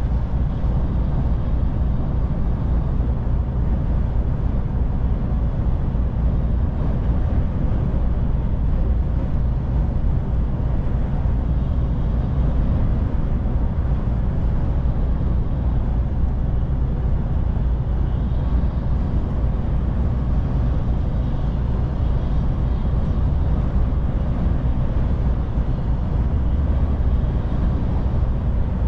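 DAF truck's diesel engine and tyre noise, a steady low rumble while driving at an even pace.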